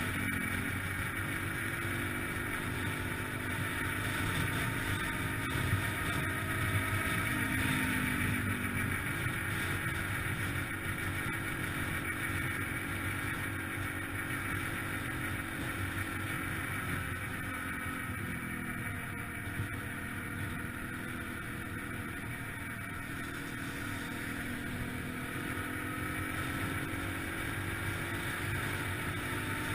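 2003 Yamaha TT-R125LE dirt bike's small single-cylinder four-stroke engine running under way, its pitch climbing as it accelerates and dropping back as it shifts or eases off, several times over.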